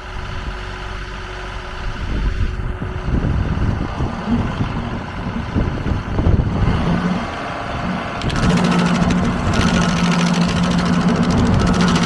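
John Deere 2038R compact tractor's diesel engine running. About eight seconds in, a rapid high-pitched chatter starts over a steady hum: the 3-point PTO stump grinder running.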